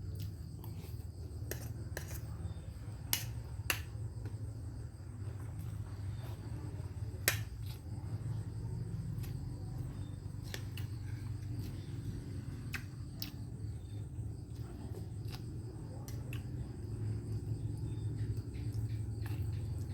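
Crickets trilling steadily over a low rumble, with scattered sharp clicks, the loudest a few seconds in and again about seven seconds in.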